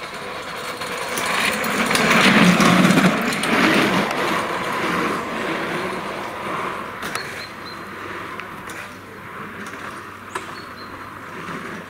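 A small-engined minikára racing car passes by. Its engine note swells to a peak about two to three seconds in, then fades away as it drives off.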